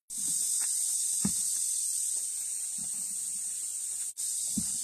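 A steady high hiss, with faint rustling and light knocks from dried red chilies being handled and destemmed; the sound drops out briefly about four seconds in.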